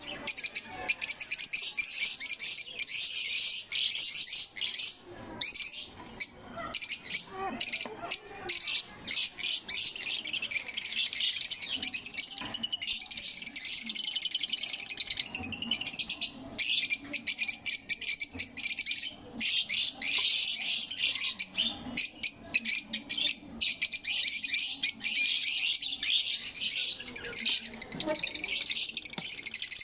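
African lovebirds chattering: a dense, continuous stream of high-pitched chirps and twitters, broken by a few short pauses.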